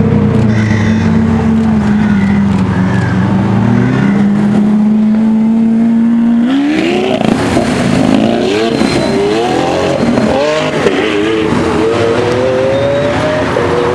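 Supercar engine holding a steady note, then from about six seconds in accelerating hard. Its pitch climbs in a run of rising sweeps, broken off between each one as it shifts up.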